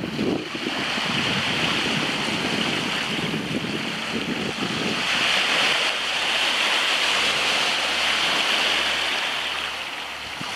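Wind buffeting the microphone in uneven gusts, over a steady hiss of small waves lapping at a beach shore.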